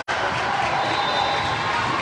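Gymnasium crowd noise: chatter and voices mixed with balls bouncing on a hard court floor, steady except for a split-second dropout at the very start.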